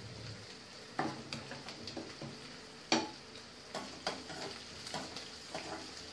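Onions and cumin seeds frying in hot oil, sizzling steadily, while a spoon scrapes and knocks against the pan several times; the sharpest knock comes about three seconds in.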